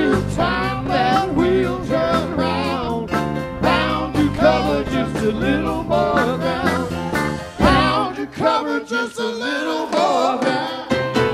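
A live band playing a country-rock jam, with electric bass and electric guitar under a lead line that slides in pitch. About eight seconds in the bass drops away for a couple of seconds before the full band comes back.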